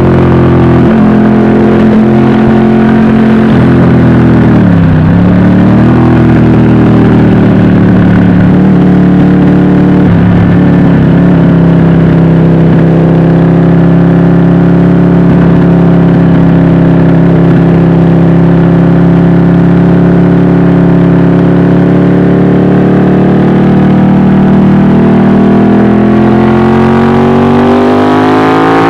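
Ducati 1199 Panigale S's 1198 cc Superquadro L-twin engine running at highway speed, heard from the rider's seat. Its pitch dips sharply and recovers about five seconds in, holds steady for a long stretch, then climbs as the bike accelerates near the end.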